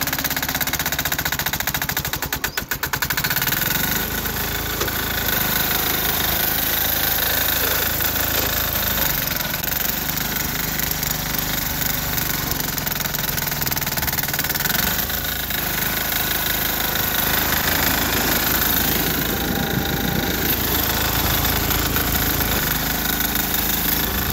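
6 hp single-cylinder diesel engine of a Sears Suburban garden tractor running steadily under load with a knocking diesel clatter, dipping briefly in loudness about two and a half seconds in.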